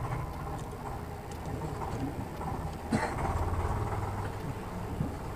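Hands handling the parts of an opened inkjet printer: a sharp plastic click about three seconds in and a lighter one near the end. Under them runs a steady low rumble.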